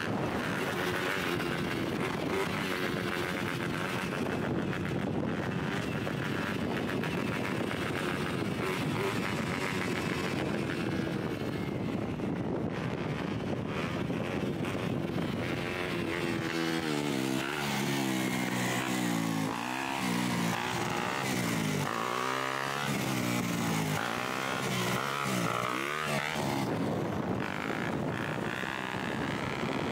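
Dirt bike engine running hard through a long wheelie. In the second half the engine pitch rises and falls again and again as the throttle is blipped and rolled to hold the wheelie.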